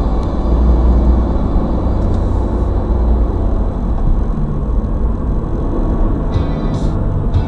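Toyota 86's flat-four engine and tyres running steadily, heard from inside the cabin as a low, even rumble.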